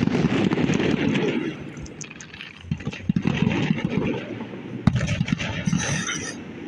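Fireworks going off: a sharp bang at the start and another about five seconds in, each followed by rumbling and crackling, with a brief high crackle near the end.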